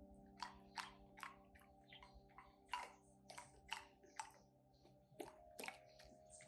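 A cocker spaniel crunching ice cubes: sharp, irregular crunches, two or three a second. Soft background music with held notes plays underneath.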